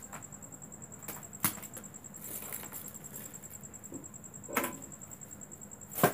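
A few sharp clicks and knocks from tools and parts being handled on a workbench, the loudest near the end, over a faint steady high-pitched whine.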